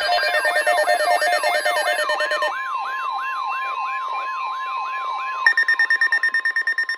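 Electronic siren-like emergency alert tones: a yelping sweep that rises and falls about three times a second. A steady tone joins it about two and a half seconds in, and near the end a louder, fast-pulsing higher beep comes in.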